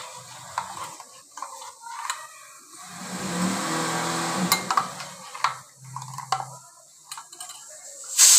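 A spoon stirring pani puri water in a steel vessel: scattered clinks of the spoon against the steel and the swish of swirling liquid, loudest a few seconds in. A loud steady hiss cuts in at the very end.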